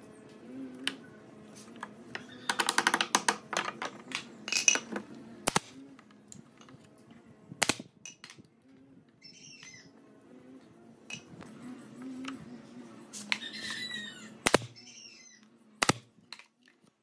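Pneumatic nail gun firing single sharp shots into pine slats and a wooden frame, four loud ones spread through, after a quick run of clattering taps. Birds chirp in the background.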